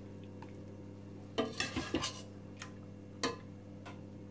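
Metal spoon scraping and clinking against a glass baking dish while spreading meat sauce over aubergine slices: a cluster of scrapes about a second and a half in, then one sharp clink past three seconds. A steady low hum runs underneath.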